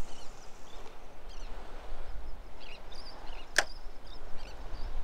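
Wind buffeting the microphone with a steady low rumble, faint bird chirps here and there, and one sharp click about three and a half seconds in.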